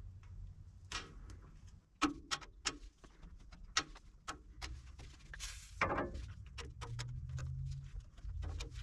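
Faint scattered clicks and light metal knocks of a grease gun being handled and fitted to the grease points under a dump trailer, with a brief hiss about halfway through and a low hum near the end.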